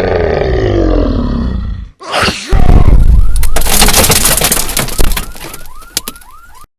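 An exaggerated comic sneeze. A long roaring vocal build-up with a wavering pitch breaks off about two seconds in. Then comes a loud crashing blast, full of cracks and breaking noises, that fades into crackles and cuts off abruptly near the end.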